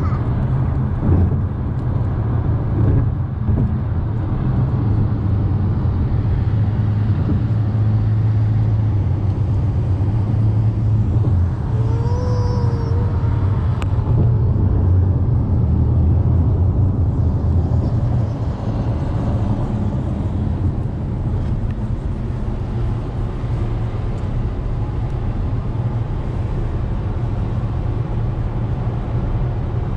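Steady road noise heard from inside a moving car's cabin: a low engine-and-tyre rumble with the hiss of tyres on wet pavement. A brief wavering tone sounds about twelve seconds in.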